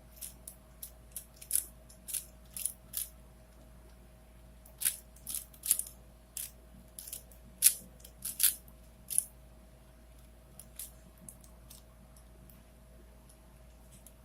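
A 4x4x4 Rubik's cube (Rubik's Revenge) being turned: a run of sharp, irregular plastic clicks as its layers snap round. They are dense for about the first nine seconds, then thin out to a few faint ticks.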